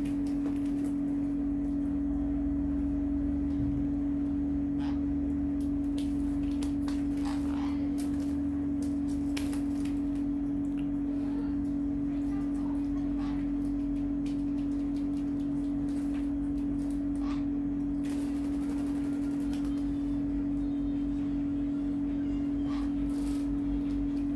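A steady low hum of one pitch, with scattered small splashes and ticks from small parrots bathing in a shallow tray of water.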